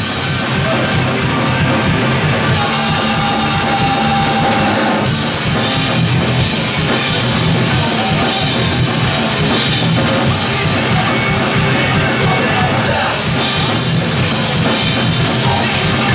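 Live hardcore punk band playing loud, with distorted electric guitar, bass guitar and a drum kit; a guitar note is held for a couple of seconds near the start.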